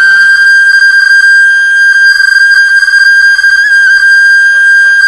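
Flute music holding one long, high, steady note, with a brief ornament about three and a half seconds in.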